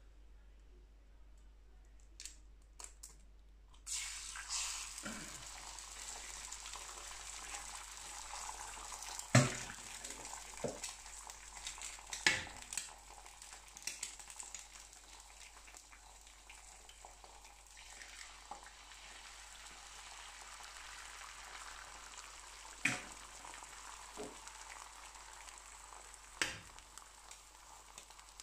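Eggs frying on a hot buttered carbon steel griddle. Sizzling starts about four seconds in and carries on steadily, broken by four sharp knocks as more eggs are cracked.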